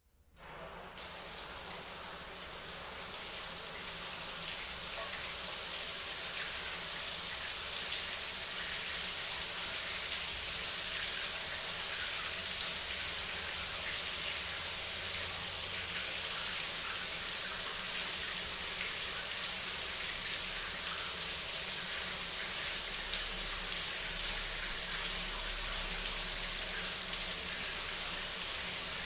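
Shower spray running steadily, an even hiss of falling water. It rises from silence over about the first second.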